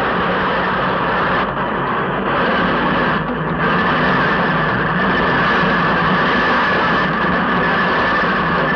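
Heavy industrial machinery running, a loud steady mechanical din with a constant hum.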